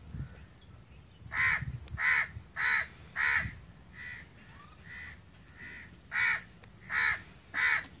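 A crow cawing: about ten short, harsh caws. The first four are loud, the next three fainter, and the last three loud again.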